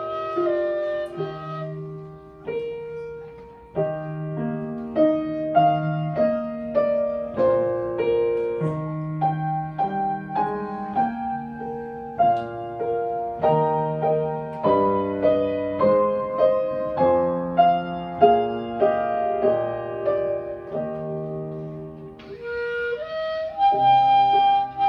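Clarinet and grand piano playing a slow classical romance. For most of the passage the piano carries it with a steady pattern of chords over bass notes, and near the end the clarinet comes back in with a long held note.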